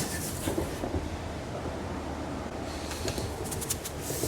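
Steady low rumbling outdoor noise, with a sharp click at the start and a few light clicks about three and a half seconds in.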